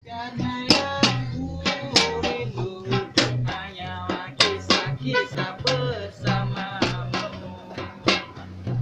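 Buskers' acoustic music: a plucked string instrument played in quick notes and chords over a steady low bass.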